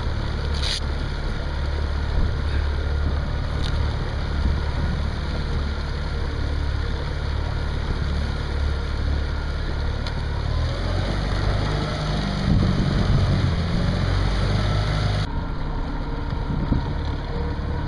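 Tohatsu four-stroke outboard motor running steadily at low speed, a continuous low hum pushing the duck boat through the water.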